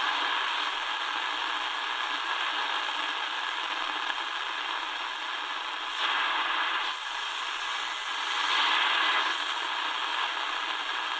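Shortwave static hissing from the Tecsun DR-920C's speaker as its analog dial is tuned up through the 31-metre band, swelling louder briefly about six seconds in and again near nine seconds.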